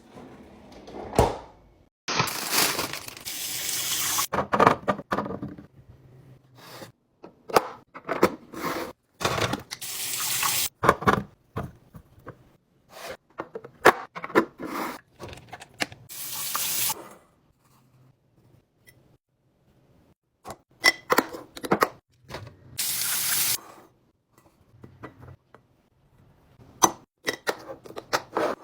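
A tap running into a sink in several short stretches, among many short knocks and clatters of items being handled.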